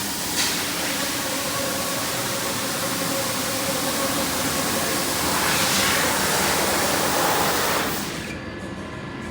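A steady, loud hiss with a faint hum under it, dropping sharply about eight seconds in.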